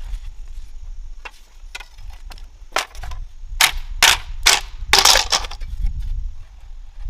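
Dry wood cracking and snapping as it is broken: a few lighter cracks, then about five loud ones close together between three and a half and five and a half seconds in, over a steady low rumble.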